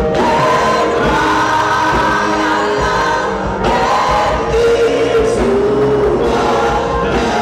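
Gospel choir singing a held, sustained melody over instrumental backing with a steady low beat.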